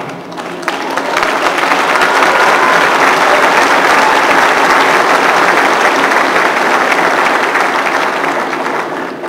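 Audience applauding, swelling up over the first couple of seconds and dying down near the end.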